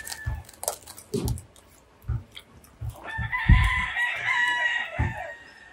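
A rooster crowing: one long call of about two seconds, starting about three seconds in. Short low knocks close to the microphone are heard throughout.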